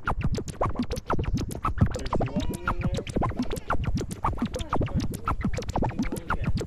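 Background music: a fast beat with record-scratch sounds.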